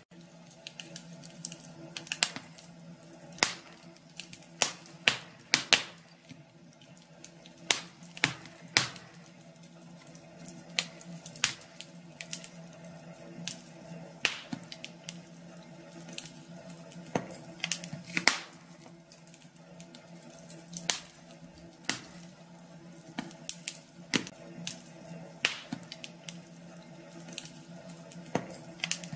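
Wood fire crackling in a fireplace: irregular sharp pops and snaps, some much louder than others, over a faint steady hum.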